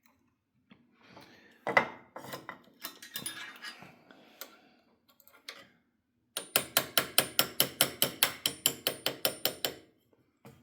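Rifle bolt parts handled with a few clatters and knocks, then a quick even run of about twenty light metallic taps, about six a second, as a pin is driven further out of a Vudoo Gen 1 bolt to release the firing pin.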